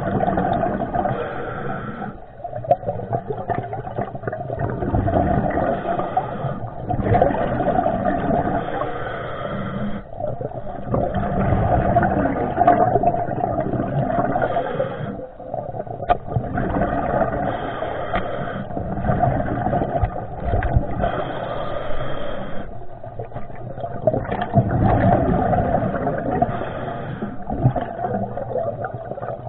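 Muffled surging water noise heard through a waterproof camera in the sea, swelling and falling every few seconds with short dips.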